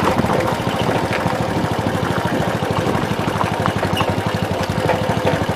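Small trail motorcycle's engine running steadily at an even speed while being ridden, heard from the rider's seat.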